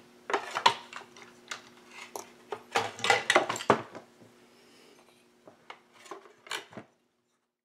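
Metal chainsaw parts and loose saw chain clinking and clattering as a Husqvarna 572XP is handled during reassembly on a workbench. A dense run of clicks and clatter fills the first four seconds, then a few scattered clicks follow, all over a faint steady hum. The sound cuts out abruptly near the end.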